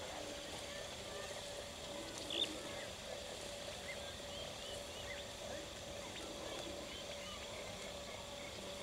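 Scattered bird calls and chirps over open grassland, with one louder call about two and a half seconds in, against a steady faint hum.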